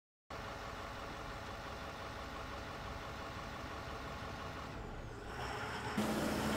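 Steady drone of a large engine running, like a heavy diesel vehicle idling. It starts suddenly just after the beginning, and about half a second before the end it gives way to a louder, different low hum.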